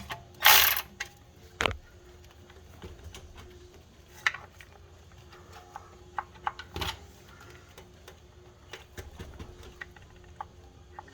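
Scattered metallic clicks and knocks of hand tools on metal, a socket ratchet being worked on clutch pressure plate bolts, with a short burst of noise about half a second in.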